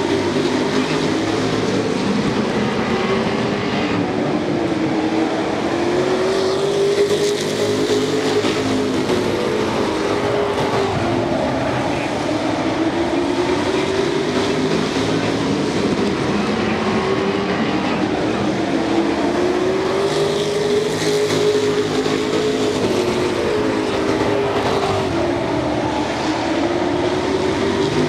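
Several Super Pro race trucks' engines running together on an oval, their pitch rising and falling in a repeating cycle every several seconds as they speed up along the straights and ease off into the turns.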